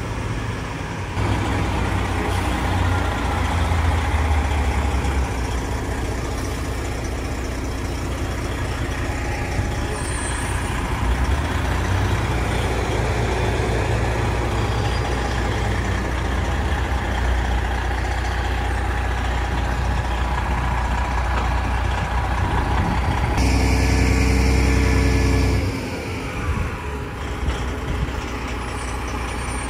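Semi-truck driving, with a steady low engine drone and road noise. Near the end the engine grows louder with a clearer pitch for a couple of seconds, then drops back.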